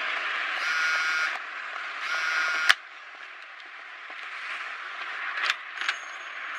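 Mobile phone vibrating with an incoming call: buzzing pulses of under a second, about one every second and a half, cut off about two and a half seconds in. After that comes quieter street ambience with a couple of light knocks.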